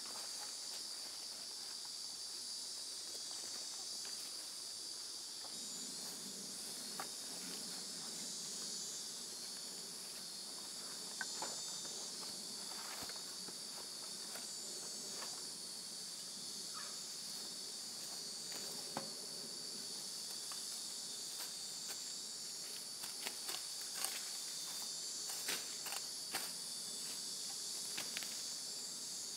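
Steady high-pitched chorus of insects, with low rustling from people moving through garden plants. In the last few seconds, a series of sharp knocks and scrapes from a hoe digging into the soil.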